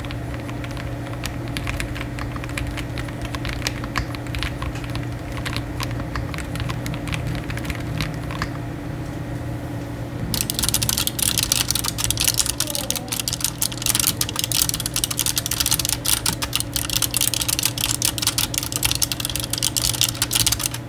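Slow typing on mechanical keyboards. First comes a soft clatter of linear switches (PressPlay Rover 84 V4). About halfway it changes to a louder, sharper clicking of blue tactile switches (TechWare Phantom L). A steady low hum runs underneath.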